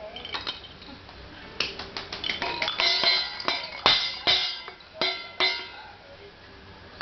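Irregular clanging strikes on ringing metal objects, pots and pans being banged. The hits are sparse for the first second and a half, then come thick and fast, and thin out again near the end.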